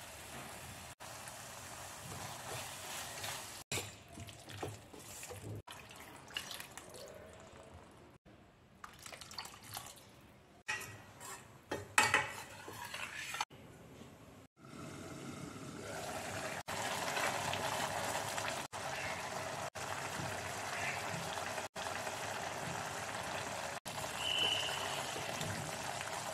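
Mushroom curry cooking in a stainless steel pan: first stirring and sizzling, then water splashing in with a few sharp metal clinks around the middle. Once the glass lid is on, it settles into a steady simmer.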